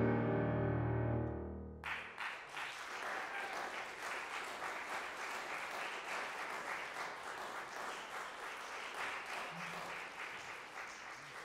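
The final chord of a concert grand piano rings on and dies away. About two seconds in, audience applause breaks out suddenly and continues steadily, thinning near the end.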